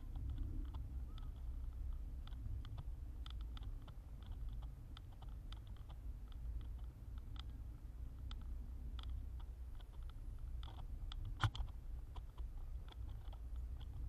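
Bicycle rolling along a paved path, heard close up from the bike: a low steady rumble with irregular light clicks and rattles, and one sharper knock about eleven and a half seconds in.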